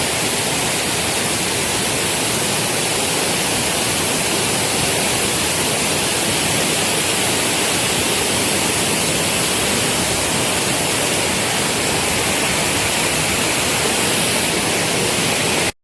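Waterfall rushing: a steady, loud wash of falling water across all pitches, cutting off suddenly near the end.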